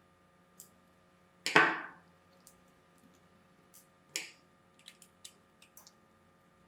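Hard knocks and clicks of small objects being handled and set down: one loud knock about a second and a half in, a weaker one about four seconds in, and a run of light clicks near the end.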